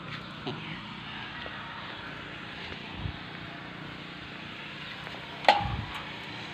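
Steady outdoor background hiss, with one sharp knock about five and a half seconds in.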